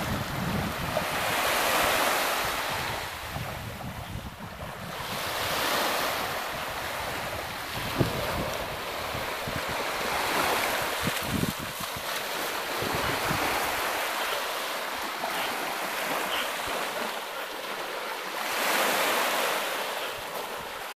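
Small waves washing onto a sandy shore, the surf swelling and fading every few seconds, with wind rumbling on the microphone that eases off about two-thirds of the way through. A single sharp thump about eight seconds in.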